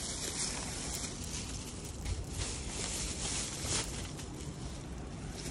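Thin plastic takeout bag crinkling and rustling as it is pulled out of an insulated delivery bag and set down on wooden boards, with a low rumble of handling underneath.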